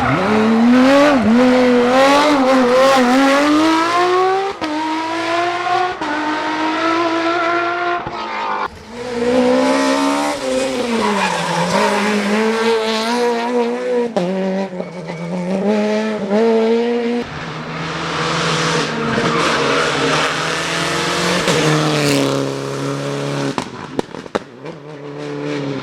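Rally car engines revving hard at full throttle, the pitch climbing and dropping again and again through gear changes, with tyre squeal. The sound changes abruptly several times.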